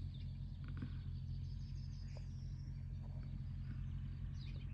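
Rural outdoor background: a steady low hum with faint bird chirps now and then.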